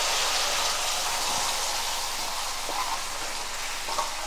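Jaggery water poured into a kadai of hot oil and fried spices, sizzling with a steady hiss that slowly eases off as the liquid goes in. A couple of light knocks near the end.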